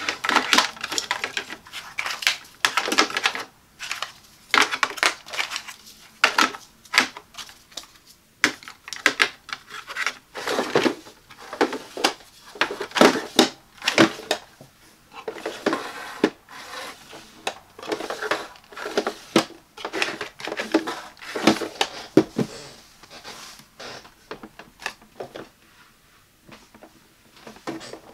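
Plastic handling sounds from single-serve coffee pods and a Mind Reader Anchor plastic pod drawer: many sharp clicks and taps as pods are set into the drawer's slots, with short sliding scrapes as the drawer is pushed in and pulled out. The taps thin out for a few seconds near the end.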